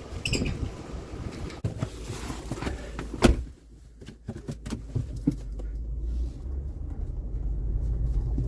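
Pickup truck door shutting with one loud thud about three seconds in, after some clicks and rustling; then the truck's engine runs with a steady low rumble that grows louder, heard from inside the cab.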